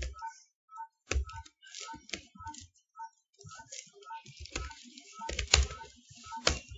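Computer keyboard typing: scattered, irregular keystroke clicks, coming thicker and louder in the second half.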